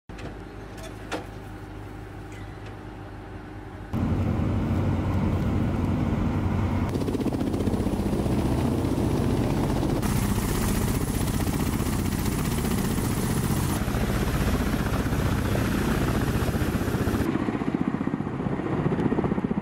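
Ka-52 attack helicopter running, its coaxial rotors and turbine engines sounding. The first four seconds are quieter, with a sharp click about a second in. From about four seconds in the rotor noise is much louder and pulses quickly, and its tone shifts abruptly a few times.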